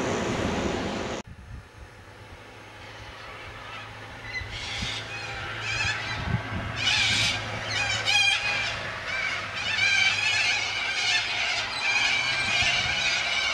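Wind and surf for about a second, cut off sharply, then a flock of galahs screeching. A few harsh calls about four seconds in build to many overlapping screeches.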